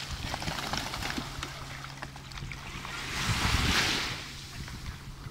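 Small waves washing onto a sandy beach, one wash swelling and fading about three seconds in, with wind rumbling on the microphone.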